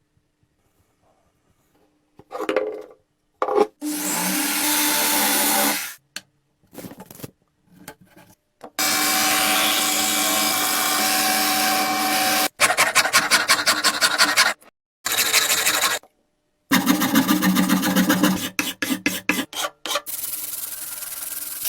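Abrasive hand work on a rusty antique axe: rasping, rubbing strokes. The strokes come in short clips that start and stop abruptly, some steady and some in quick back-and-forth runs.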